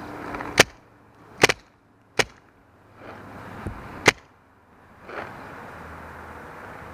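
Paintball marker firing: four sharp shots, irregularly spaced over about four seconds.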